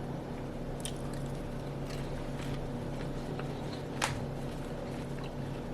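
Faint crunches of caramel-coated popcorn being chewed: a few soft crunches and one sharper one about four seconds in, over a steady low hum.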